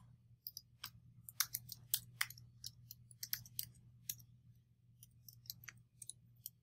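Computer keyboard typing: a run of faint, irregular key clicks over a low steady hum.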